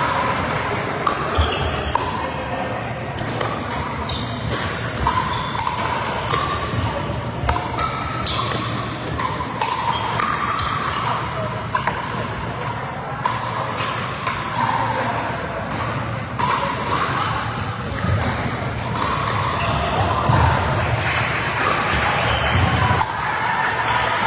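Pickleball paddles hitting a plastic pickleball in rallies, sharp hits at irregular intervals with the ball bouncing on the court, echoing in a large sports hall over indistinct chatter.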